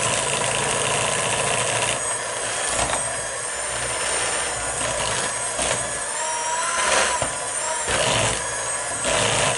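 Electric mixer running steadily, creaming butter in a bowl, with a few knocks and its motor pitch wavering about two-thirds of the way through.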